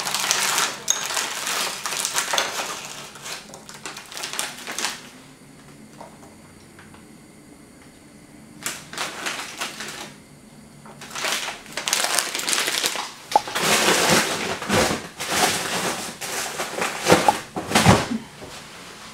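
Plastic bag crinkling and rustling in bursts as it is handled and frozen shrimp are tipped out of it into a glass bowl of water. The bursts come in three stretches with quieter gaps between.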